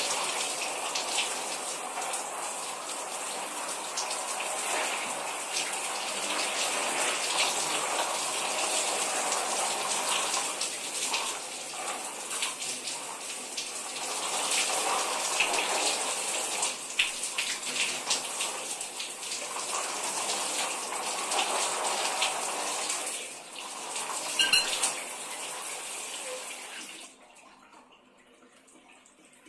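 Shower water spraying and splashing steadily, with a couple of sharp knocks about three-quarters of the way through. Near the end the water shuts off abruptly.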